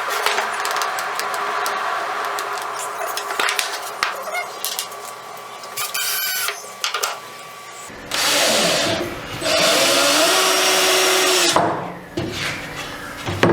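Power drill running in bursts into wood, with two loud runs about 8 and 10 seconds in, the second about two seconds long, and clicks and knocks of handling in between.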